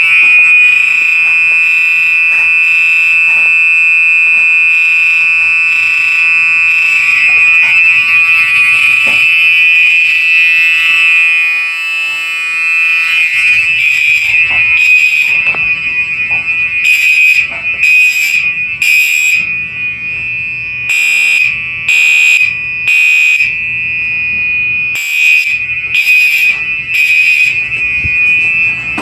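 Gentex Commander 3 and Gentex SHG fire alarm horn strobes sounding together, loud and high-pitched. A steady continuous horn tone runs throughout. About halfway through, blasts in groups of three with a pause after each group start over it, the temporal code-3 evacuation pattern.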